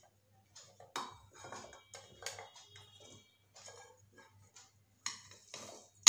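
Ingredients tipped into a stainless steel mixer-grinder jar, with steel bowls and plates touching its rim: a string of light, irregular clinks and taps, some with a brief metallic ring.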